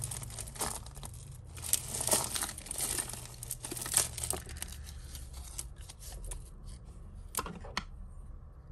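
Plastic bag crinkling and rustling as it is handled, dense for the first few seconds and then thinning out, with a couple of sharp clicks about seven and a half seconds in.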